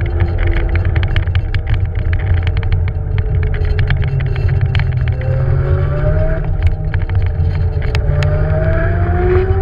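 Beaster BS11 electric scooter riding: a steady low rumble from wind and the road, with the hub motors whining and rising in pitch twice as the scooter speeds up. A rapid clicking rattle is thickest in the first few seconds and thins out later.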